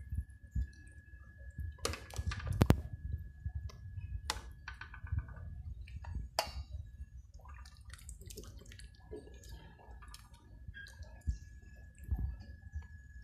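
A metal ladle scooping rice porridge from a pot and pouring it into a metal bowl. Scattered clinks and knocks of metal on metal, with wet sloshing; the loudest knocks come about two to three seconds in.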